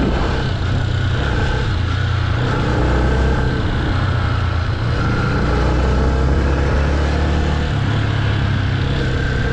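Yamaha Y15ZR's 150 cc single-cylinder four-stroke engine, tuned to stage 2 but breathing through the standard exhaust, running steadily under light throttle as the bike slowly gathers speed.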